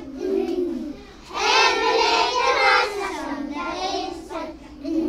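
Voices singing a melody with long held notes, the longest from about one and a half to nearly three seconds in.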